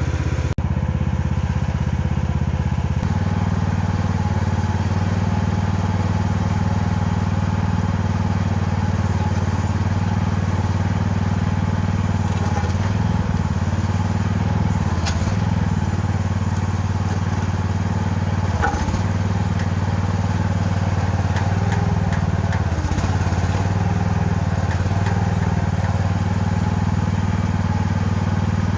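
Mini excavator engine running steadily at an even speed, with a few faint knocks and clatters from the machine.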